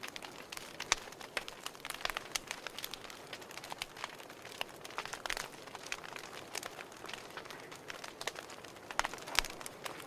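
Fire crackling: irregular sharp pops and snaps over a soft steady hiss, with a louder cluster of pops about nine seconds in.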